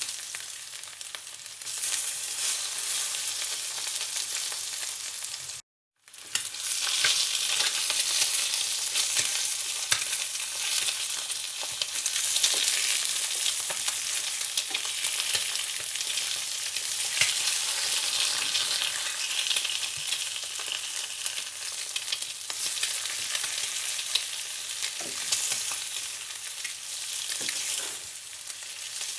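Food frying in hot oil: a steady sizzle with many small crackles and pops. It cuts out completely for a moment about six seconds in, then carries on.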